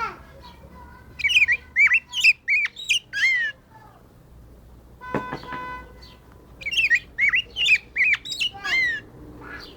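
Black-backed grosbeak (rey del bosque) singing: two runs of quick whistled notes that swoop up and down, the first starting about a second in and the second near seven seconds, with a short buzzy note between them.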